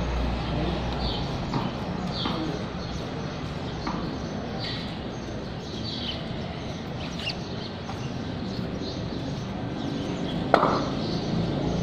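Small birds chirping on and off over a steady low background hum, then one sharp knock near the end: a ball being struck with a cricket bat.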